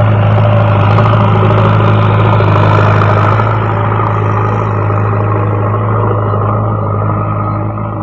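JCB backhoe loader's diesel engine running steadily as the machine pushes loose soil with its front loader bucket, with a crackle of clicks over the first three or so seconds before it eases off a little.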